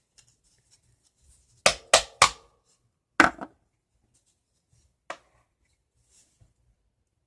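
A half-cup measuring cup knocked sharply against a bowl to shake out shaving cream stuck at its bottom: three quick knocks about two seconds in, another a second later, and a fainter one near the five-second mark.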